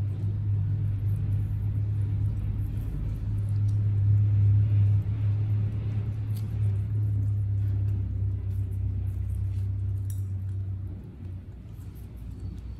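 A steady low hum that swells about four seconds in and drops away about eleven seconds in, with faint small clicks over it.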